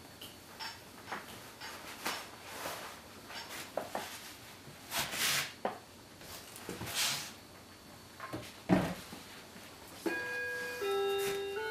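Rustling and light knocks as someone moves about and handles things, with a sharper thump about nine seconds in. Near the end, music with a simple melody starts.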